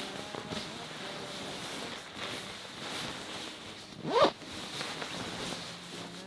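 Fabric rustling as bedding is handled, with one quick zipper pull about four seconds in, the loudest sound.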